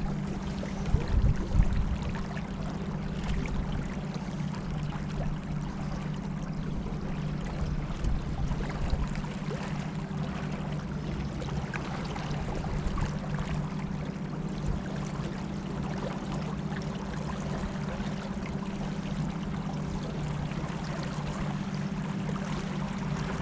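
Motorboat engine running at a steady hum while the boat moves along the river, with water rushing past the hull.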